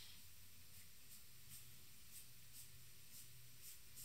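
Near silence: faint scratches of a charcoal stick on paper, coming every half second or so, over a low steady hum.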